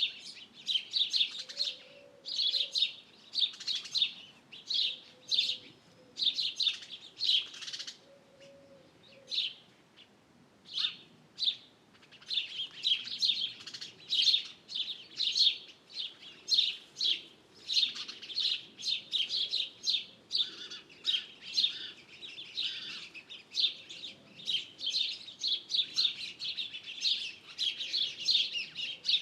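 Birds chirping and singing, many short high chirps that come thick and fast, thinning out to a few scattered calls for a few seconds about a third of the way in.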